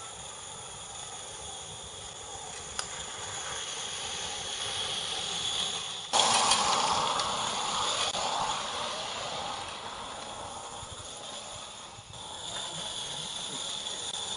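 16 mm scale live-steam garden locomotive running, with a steady hiss of steam. It gets suddenly louder and closer about six seconds in, then fades gradually.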